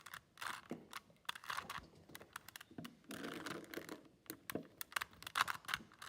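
A 3x3 Rubik's cube being turned by hand. Its plastic layers click and clack in quick, irregular runs as an edge-insertion move sequence is performed.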